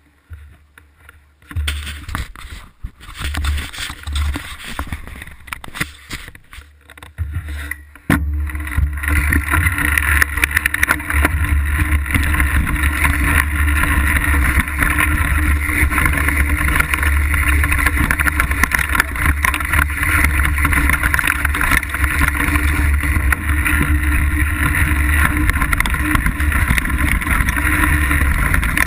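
Banshee Legend Mk2 downhill mountain bike ridden down a dirt trail, picked up by a camera mounted on the bike: tyre noise, chain and suspension rattle over rough ground. The first eight seconds are uneven, with separate knocks and rattles; from about eight seconds in a steady rush of wind on the microphone and a low rumble take over.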